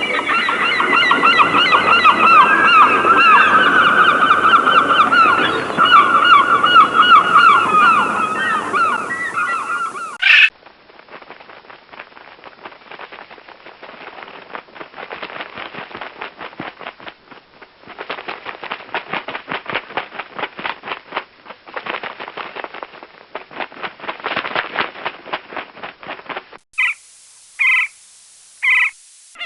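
A run of different bird recordings. First a loud, dense flock of many birds calling over one another for about ten seconds, with goose-like honking. It cuts to a quieter stretch of rapid, irregular clicking chatter. Near the end come three short separate calls.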